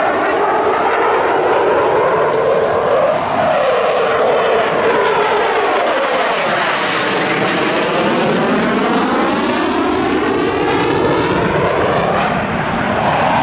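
Eurofighter Typhoon fighter jet, its twin turbofan engines loud and continuous as it passes, the jet noise sweeping down and then back up in pitch during the pass.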